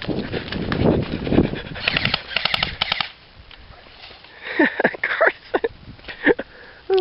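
Airsoft guns firing in automatic bursts: rapid strings of sharp clicks, about ten a second, mostly in the first three seconds, with scattered single shots later.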